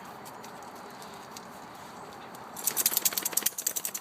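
Dogs playing close by: a quick burst of rapid jingling and clicking, like collar tags and scrabbling paws, lasting about a second and a half from just past halfway.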